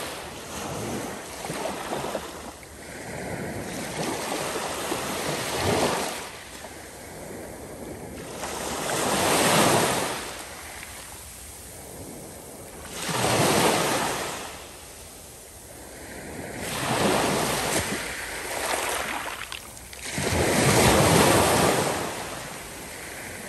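Small ocean waves breaking and washing up a sandy beach, the surf coming in rising and falling rushes every three to four seconds.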